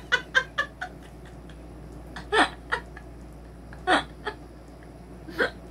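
A woman laughing: a quick run of short laughs, then three single bursts of laughter about a second and a half apart.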